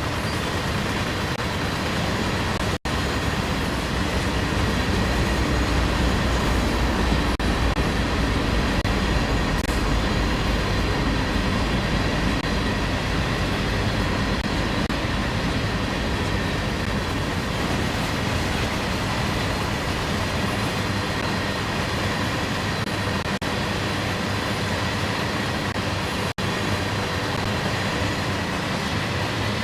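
CSX freight train rolling by, a steady rumble of its cars' wheels on the rails.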